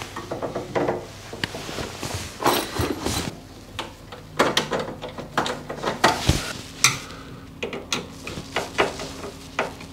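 Storage heater's front cover panel being fitted and screwed down along its top edge: irregular clicks, knocks and scrapes from the panel and a screwdriver.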